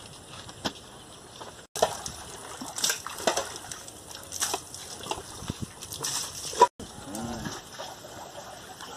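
Wet cloth rubbing and scrubbing over a shampoo-lathered motorcycle, with scattered sharp clicks and knocks. A short wavering call is heard after the second break.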